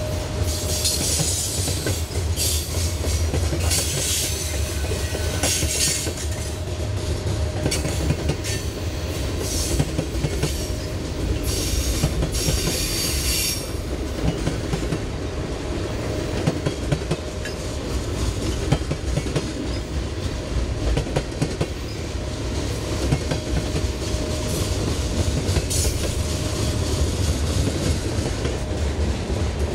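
Freight cars of a mixed freight train rolling past: a steady low rumble of steel wheels with sharp clicks over the rail joints. A high hissing screech from the wheels runs through the first half and stops about halfway through.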